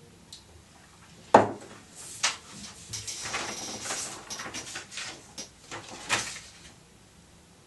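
A sharp knock about a second and a half in, the loudest sound, and a lighter click a second later, then paper rustling as a sheet is handled, with another click near the end.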